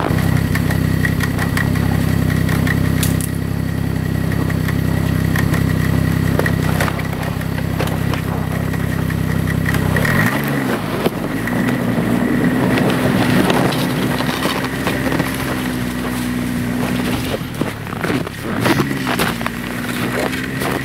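Snowmobile engine idling steadily, then about ten seconds in it revs up and runs at a higher pitch, easing off briefly near the end before picking up again.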